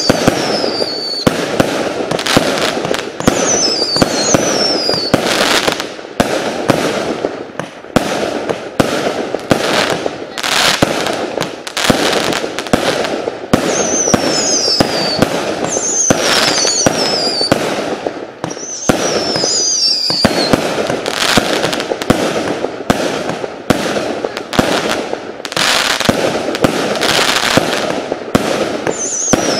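Svea Sledgehammer 108-shot fireworks cake, with 19, 25 and 35 mm tubes, firing a rapid, unbroken string of shots and bursts over constant crackling, with several short whistles falling in pitch.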